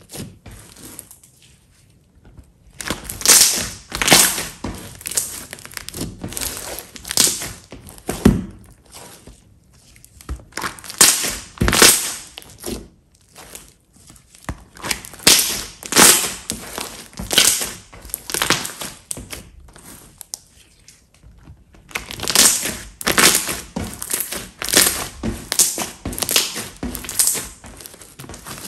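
Glossy slime being pressed, squeezed and stretched by hand against a tabletop: irregular squishing bursts one after another, with a few short pauses.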